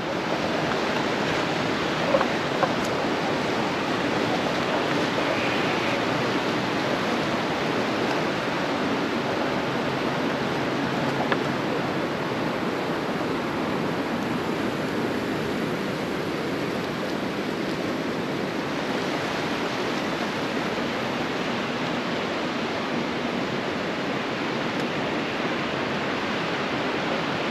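James River water rushing steadily past the bridge piers below, a continuous even rush with no let-up.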